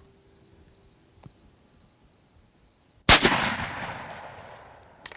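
A single .308 Thompson/Center Encore Pro Hunter rifle shot about three seconds in: one loud crack that echoes away over about two seconds.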